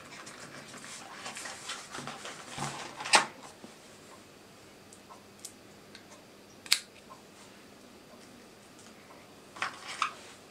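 Hands handling a cardboard accessory box and a plastic three-pin plug charger: rustling for the first few seconds, ending in a sharp click about three seconds in, another single click midway, and a couple of quick taps near the end.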